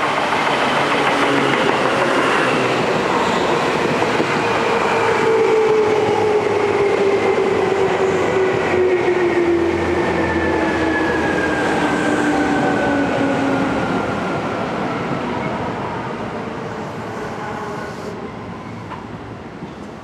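Seibu 2000 series electric train pulling into a station: wheels on the rails and a whine that falls steadily in pitch as the train slows. It grows quieter over the last few seconds as it nears a stop.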